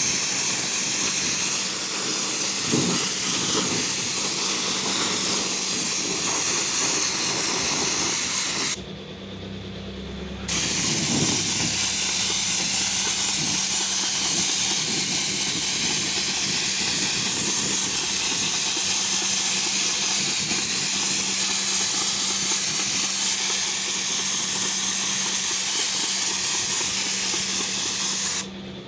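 Compressed-air spray gun hissing steadily as it sprays thick stone-chip underbody coating. The spray cuts off for about two seconds around nine seconds in, and again just before the end.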